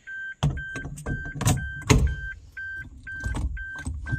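An aftermarket quick-release steering wheel is pulled off its hub, with clicks and knocks from the hub and column. Under them a short electronic beep repeats steadily about twice a second.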